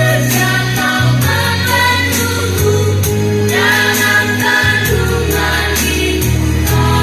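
A young girl singing a song over backing music with held bass notes and a steady beat.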